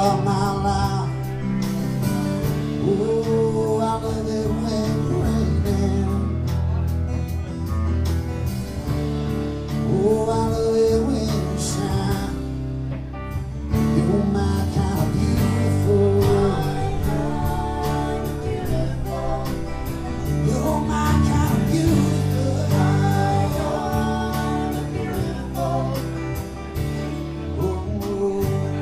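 Live band playing: singing over acoustic and electric guitars, bass guitar and drums with steady cymbal ticks.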